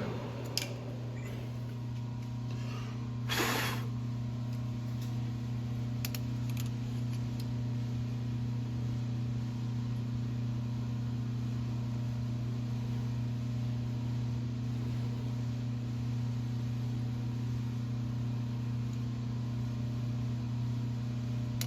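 Metal lathe running steadily with a low, even hum, with one brief hiss about three and a half seconds in.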